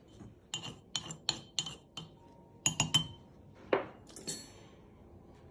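Stone pestle tapping and clinking against a stone mortar: a quick run of sharp taps, a few more knocks, then one ringing clink.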